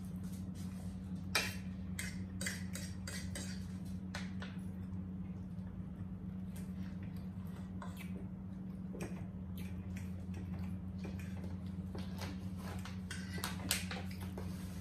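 Forks clinking and scraping on plates as people eat, in scattered light clicks, the sharpest about a second and a half in and near the end, over a steady low hum.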